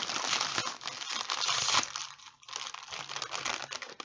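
Plastic snack bag crinkling as it is handled and pulled open. The crinkling is loud and dense for about two seconds, then lighter after a brief pause.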